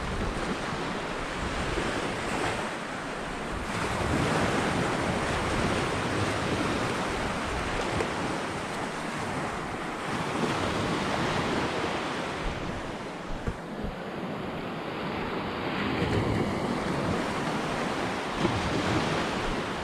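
Small surf waves breaking and washing up the sand, swelling and easing every few seconds, with wind buffeting the microphone.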